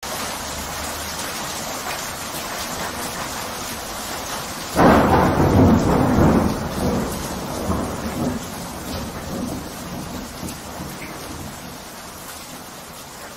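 Thunderstorm: rain falling steadily, with a clap of thunder about five seconds in that rumbles on for a few seconds and dies away.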